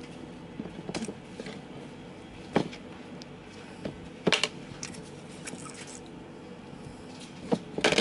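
Scattered small clicks and knocks of a metal tool and carburetor parts being handled as the float hinge pin is worked out of a Honda GCV160 carburetor, with the sharpest knocks about two and a half and four seconds in and another few near the end.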